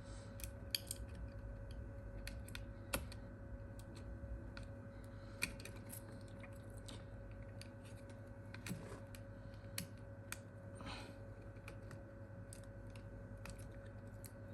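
Sparse light clicks and taps of small tools and smartphone parts being handled, with a few sharper ticks scattered through, over a steady faint hum.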